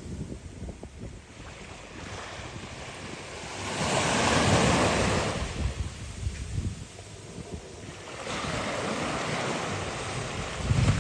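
Ocean surf washing ashore, one wave breaking and swelling about four seconds in and another building from about eight seconds, with wind buffeting the microphone.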